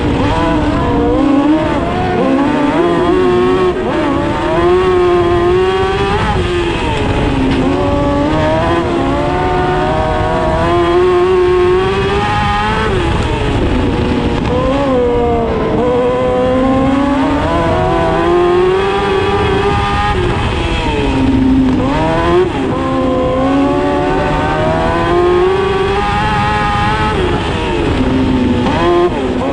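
Onboard sound of a dwarf race car's motorcycle engine at racing speed. The revs climb down each straight and drop off into each turn, over and over, with steady rumble and rattle from the car underneath.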